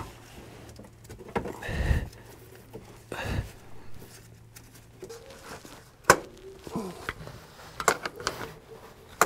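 Scattered knocks and clicks of a car starter motor being handled and wrestled in a cramped engine bay. There are two heavier bumps about two and three seconds in, and sharp clicks near the end.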